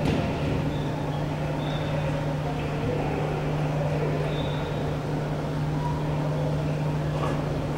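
A volleyball being hit hard at the net: one sharp smack right at the start. After it, a gym's steady low hum runs on, with a few brief high squeaks.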